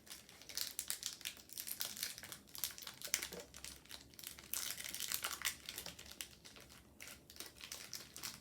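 Crinkling and rustling of a candy-bar wrapper, on and off and irregular, as a toffee bar is unwrapped by hand.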